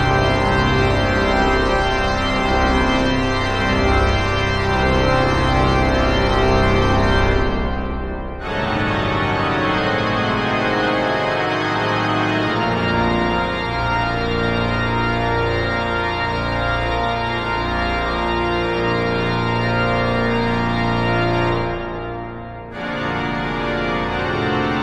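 Pipe organ playing sustained, many-voiced chords, with two short breaks between phrases, about eight seconds in and near the end.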